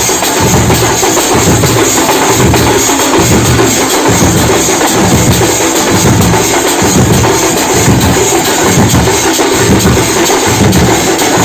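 Loud drum band beating drums with sticks in a fast, driving rhythm: heavy low beats about twice a second over a constant clatter of sticks and jingles.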